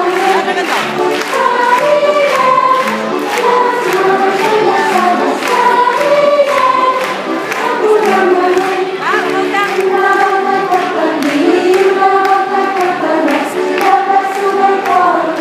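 A children's dance song: a group of voices singing the melody over music with a steady beat.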